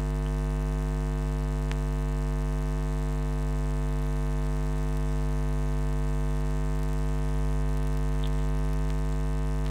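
Steady electrical mains hum with many evenly spaced overtones, at a constant level throughout; one faint click just under two seconds in.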